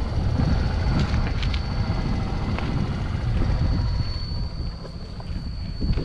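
Wind buffeting the microphone: a loud, rough low rumble.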